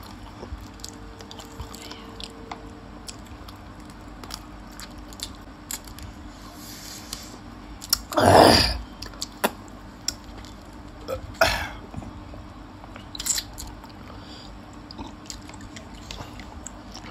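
Close-miked chewing and biting of gravy chicken feet and pani puri, with many small wet clicks and soft crunches. One louder, longer mouth sound comes about halfway through.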